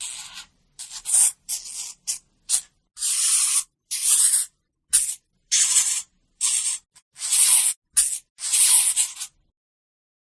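Hamster sounds: a run of short and longer raspy, hissy bursts with brief silences between them, stopping about a second before the end.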